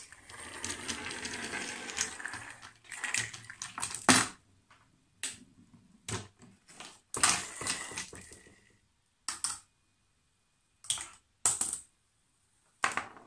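A homemade chain-reaction machine running on a wooden desk. It opens with a sharp snip as a string is cut, then about four seconds of steady rolling noise from a small wheeled toy cart. After that comes a string of separate clacks and knocks as small wooden and plastic parts fall and tip.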